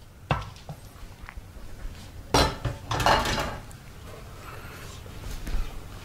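Wooden spoon and pan knocking and scraping against a stainless steel mixing bowl while fried diced bacon is stirred into dry bread cubes: a sharp knock near the start, a louder clatter about two and a half seconds in with a second of scraping, then soft rustling of the mixture.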